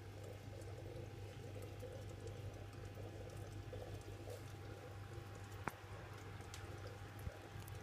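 Aquarium filter running: faint water trickling and bubbling over a steady low hum. A single sharp click a little over halfway through, and a soft knock near the end.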